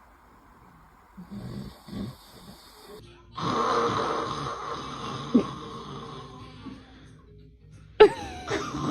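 Loud snoring: one long noisy snore of about three and a half seconds, fading as it goes. About 8 s in there is a sudden loud sound with a sliding pitch.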